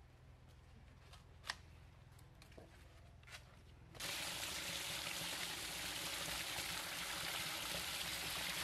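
Water pouring and splashing over raw chicken as it is rinsed by hand, starting abruptly about halfway in as a steady rush. Before it, low background with a few faint clicks.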